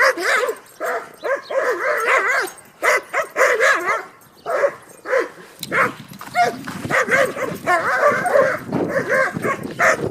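Dog yipping and whining in a rapid string of short, high, wavering calls: one dog greeting another in play. About halfway through, a rougher, lower rustling noise joins in under the calls.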